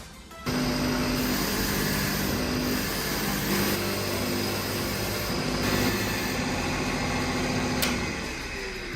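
An electric power tool's motor running steadily, starting abruptly about half a second in and dying down near the end, with one sharp click shortly before it fades.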